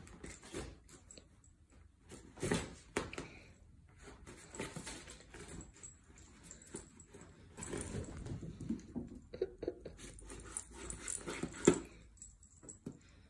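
Nylon pop-up cat tunnel rustling and crinkling as a kitten scrambles and pounces inside it, in irregular spells with short scratchy clicks. One sharp crackle near the end is the loudest.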